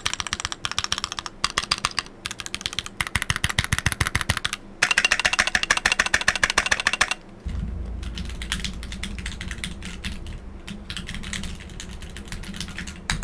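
Fast typing on a Keychron Q2 QMK mechanical keyboard with Keychron red switches: dense runs of key clacks in bursts with short pauses. About halfway through, a steady low hum comes in and the typing goes on more quietly.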